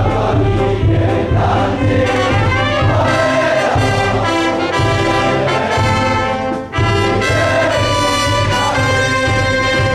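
The school song sung in unison by a large hall of students and staff, with brass band accompaniment. Near the end the song closes on held notes that die away.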